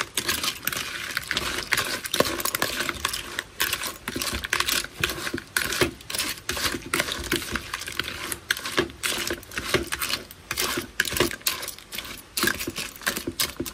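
Metal spoon stirring salted ba khía crab claws in a plastic bowl, tossing them to coat evenly in the marinade. It makes a continuous, irregular run of hard clicks and clatter as the shells knock against each other and the spoon.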